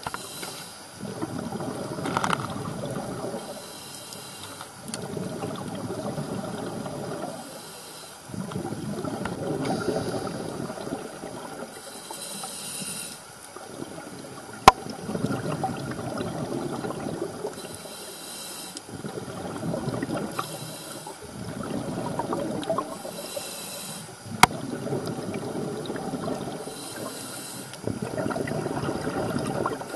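Scuba diver breathing through a regulator underwater: a rush of exhaled bubbles alternating with a short high hiss on each inhale, about every four to five seconds. Two sharp clicks are heard, about halfway and about four-fifths of the way in.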